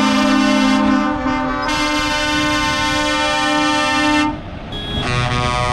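Truck air horns held in a long multi-note chord that shifts pitch about a second in and cuts off after about four seconds; another horn chord starts near the end.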